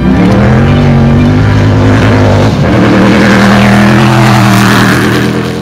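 Off-road race vehicle's engine running hard at high revs, a steady loud engine note that fades near the end.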